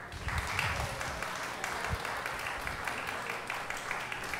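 Audience applauding at the end of a talk: a crowd of hands clapping that breaks out suddenly and goes on steadily.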